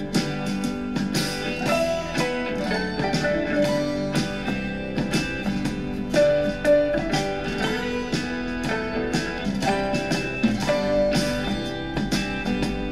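Guitar-led country/folk music played back through an Eggel Bluetooth speaker during a sound test, with plucked and strummed guitar notes throughout.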